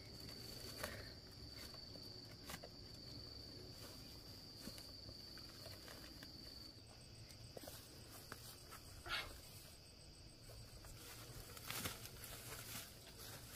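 A field insect calling with one steady high-pitched tone, which weakens about halfway through, over light rustling of grass and scattered soft knocks. Near the end come footsteps through grass.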